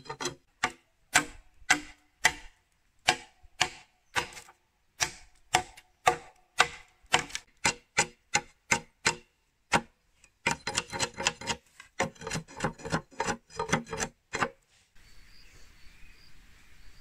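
Repeated sharp chopping strikes, about two a second, then a faster flurry of about four a second. About fifteen seconds in, they give way to crickets chirping steadily.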